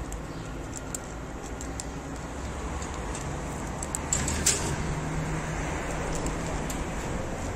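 Cat crunching dry kibble from a plate: small irregular clicks, with a sharper one about four and a half seconds in, over a steady low hum of road traffic.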